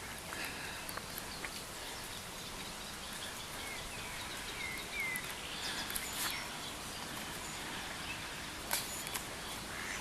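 Outdoor ambience: a steady background noise with faint bird chirps, a few short rising chirps about halfway through, and a few light clicks.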